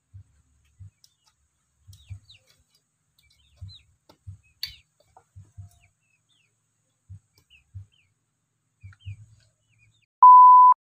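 A dozen or so dull, low knocks, irregular and often in pairs, as a nail is struck to punch holes in a thin metal antenna tube, with faint bird chirps among them. Near the end comes a loud, steady, high electronic test-tone beep lasting about half a second.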